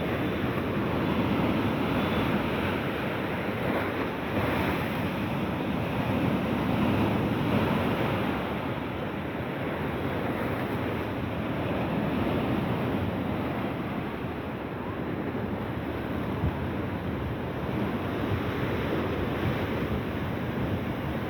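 Sea waves washing onto the shore, a continuous surf rush that swells and eases slowly, with wind on the microphone.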